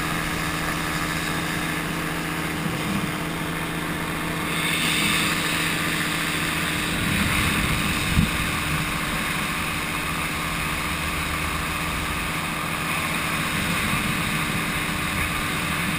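Engine and propeller of an Xcitor powered paraglider trike running steadily in flight, a constant drone with wind rushing over the microphone. It gets briefly louder around eight seconds in, with a single sharp knock.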